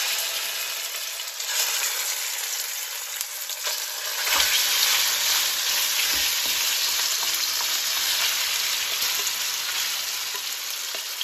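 Seasoned diced chicken thighs sizzling loudly in preheated olive oil in a pan, with a few soft knocks. The sizzle swells about a second and a half in and again about four seconds in.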